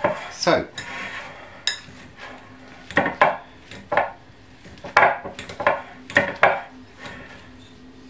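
Metal potato masher clinking and scraping against the inside of a glass mixing bowl while mashing soft cooked potatoes: about ten irregular knocks, one or two a second.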